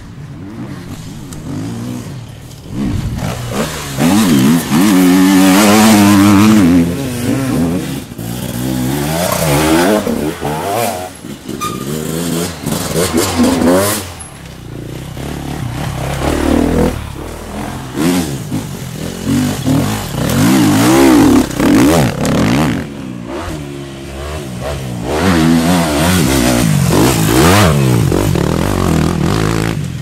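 Enduro motorcycles revving hard as they ride past on a dirt course, one after another, the engine pitch climbing and dropping with each throttle burst and gear change. The loudest passes come about four to seven seconds in and again in the last few seconds.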